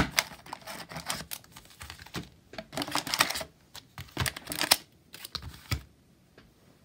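Foil Magic: The Gathering booster packs being handled and set down on a table: an irregular run of light taps, slides and wrapper rustles, dying away in the last second.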